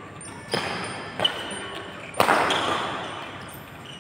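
Badminton rackets striking the shuttlecock during a doubles rally: three sharp hits, the last and loudest about two seconds in, each echoing in a large hall.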